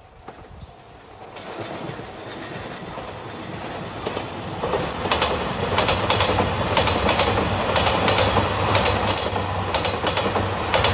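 JR Shikoku 2700 series diesel express train passing close by. Its rumble and a low drone grow as it approaches, and from about halfway on the wheels clatter over the rail joints in quick repeated knocks.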